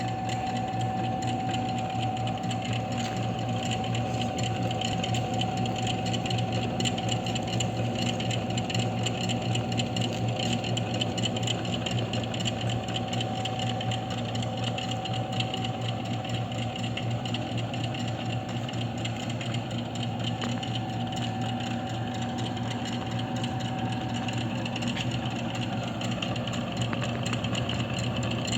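Pillar drill press running at a steady speed, its electric motor and spindle humming with a thin steady whine that fades out a few seconds before the end.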